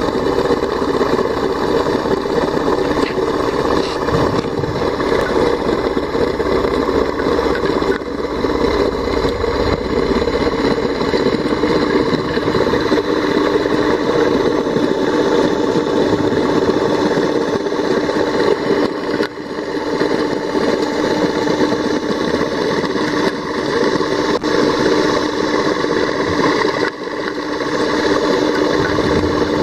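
Submersible dredge pump running steadily, heard underwater as a continuous machine hum and rush while it sucks sand out of a hole in the seabed.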